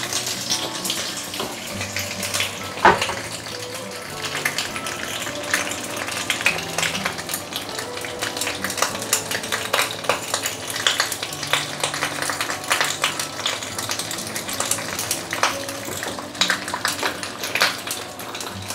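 Wet banana leaves crackling and spitting in hot oil in a frying pan: irregular sharp pops throughout, with one louder pop about three seconds in.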